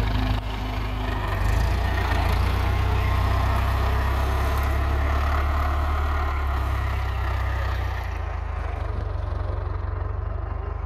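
International 845 XL tractor's diesel engine running steadily, a little louder from a second or two in and easing off slightly near the end.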